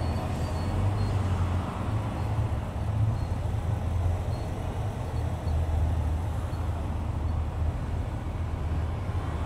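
Road and traffic noise from a car driving slowly in city traffic: a steady low rumble of engines and tyres, with no distinct events standing out.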